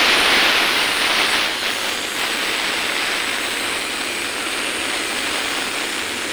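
Steady rushing noise with no rhythm or tone, a little louder for the first second and a half.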